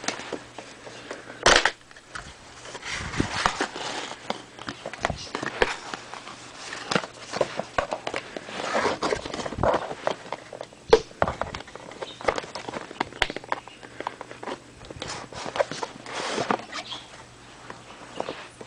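Packaging of Shure SE420 earphones being handled and opened by hand: irregular rustling with many scattered clicks and taps, the loudest a sharp click about a second and a half in.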